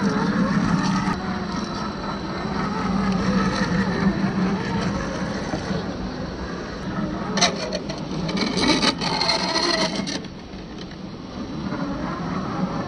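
1/10-scale RC crawler's electric motor and gears running steadily as it drives the trail. About seven to ten seconds in comes a stretch of rapid clicking and scraping.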